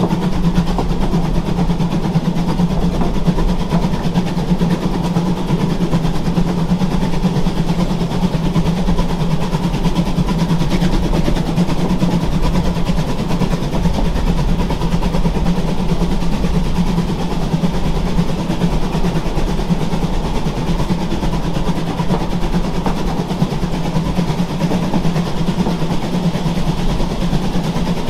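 Narrow-gauge train running along the line, heard from aboard: a steady, even rumble of the wheels on the rails, with a faint steady whine above it.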